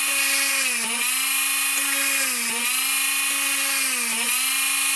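Handheld Minicraft mini drill with a 1 mm tungsten carbide bit running with a steady motor whine as it drills holes through a copper-clad circuit board. Its pitch dips briefly three times, once each time the bit bites into the board and slows the motor.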